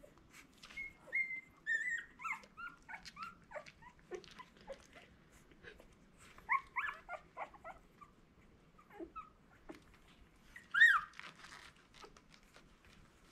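Eleven-day-old Miniature Australian Cattle Dog puppies squeaking and whimpering while they nurse, in many short high calls that come in clusters, the loudest squeal near the end.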